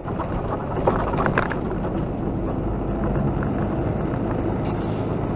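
Heavy truck's diesel engine and road noise heard inside the cab at highway speed, a steady low drone. A few brief knocks or rattles come about a second in.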